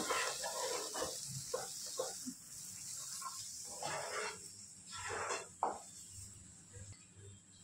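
A steady high hiss with a string of irregular short scrapes and knocks.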